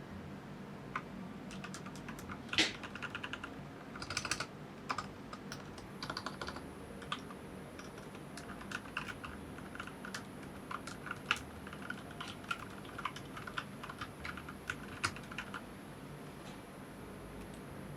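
Typing on a GK61XS mechanical keyboard with Gateron Milky Yellow linear switches: irregular keystrokes with quick runs of keys, stopping shortly before the end.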